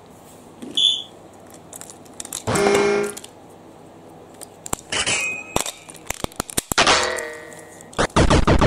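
Hard plastic parts of a battery-powered toy train engine being handled: a run of sharp clicks and knocks with several louder rattling bursts as an AA battery goes into the chassis' battery compartment and the body shell is picked up.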